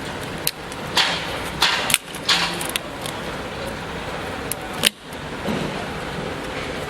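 A plastic container of liquid latex being opened and handled: a few sharp clicks and short scraping rustles over steady background noise.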